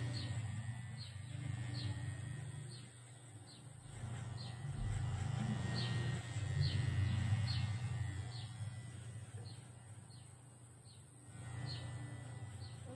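Cordless electric hair trimmer buzzing low and steady against the head, swelling and fading as it moves. Short, high bird chirps repeat throughout.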